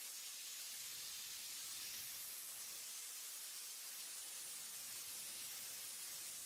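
A steady, even hiss, strongest in the high pitches.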